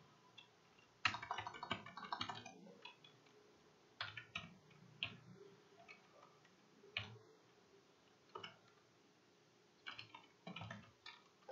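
Computer keyboard typing: a quick run of keystrokes about a second in, then scattered single key or mouse clicks.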